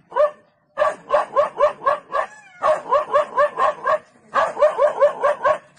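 A dog barking rapidly at a leopard, alarm barking: a single bark, then three quick bouts of about five barks a second with short pauses between them.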